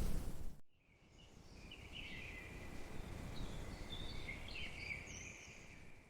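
Faint ambience of scattered high, wavering chirps over a low rumble, after a loud noise wash cuts off in the first second.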